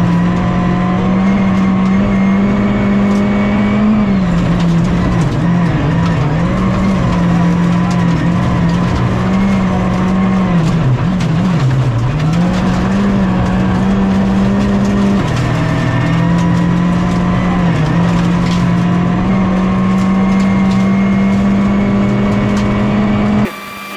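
Rally car engine at high revs, heard from inside the cockpit, held at a near-constant pitch. It dips and climbs back a few times, about four, eleven and fifteen seconds in, where the driver lifts off for corners.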